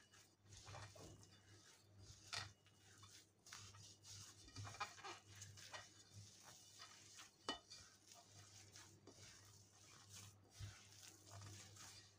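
Faint squishing and rustling of hands kneading crumbly oat-and-flour dough in a glass bowl, with occasional soft knocks against the bowl. A low steady hum sits underneath.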